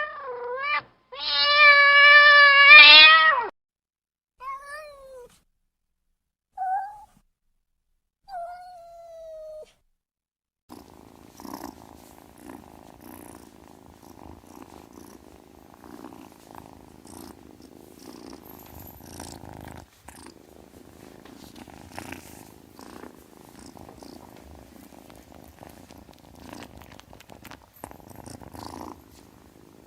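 Domestic cat meowing: one loud, drawn-out meow about a second in, then three shorter, fainter meows. After about ten seconds these give way to a cat purring steadily.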